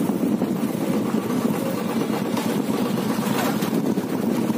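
Steady rumble of a small vehicle's engine, heard from on board while riding along a street.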